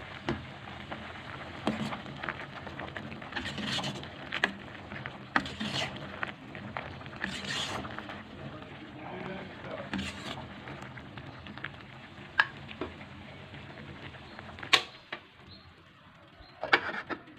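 Peanuts boiling hard in a pot of water on a gas burner: a steady bubbling with many small pops. About fifteen seconds in there is a sharp click, and the bubbling dies down as the heat is turned off. There is a short clatter near the end.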